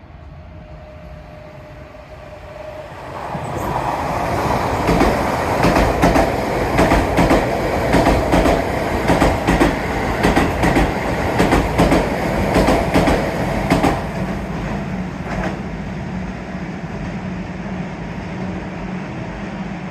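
Keisei electric train running past, its wheels clattering over the rail joints in a quick repeating rhythm for about ten seconds, then easing off into a steady fading hum.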